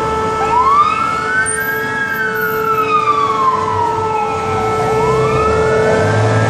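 Fire engine siren wailing in a slow rise and fall: it climbs, sinks back over about three seconds and starts to climb again. A steady tone and the low running of a truck engine sound underneath.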